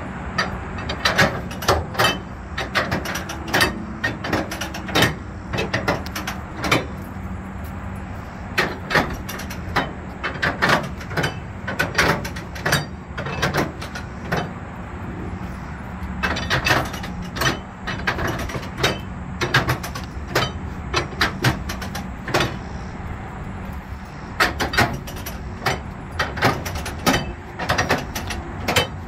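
Flatbed trailer strap winches being cranked tight with a winch bar: runs of sharp ratchet clicks from the winch pawls, several a second, coming in bursts with short pauses as the bar is reset, over a steady low rumble.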